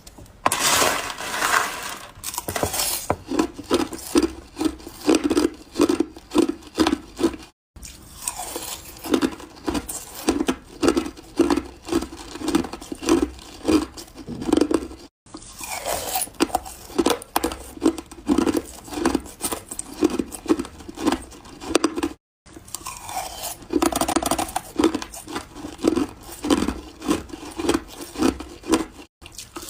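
Ice being chewed close to the microphone: steady crunching bites at about three a second. It is broken by brief silent cuts about every seven seconds.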